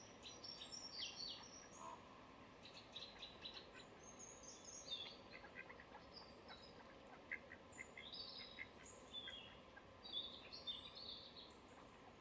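Songbirds singing faintly: a scattered run of short, high chirps and trills over a quiet, even background hiss.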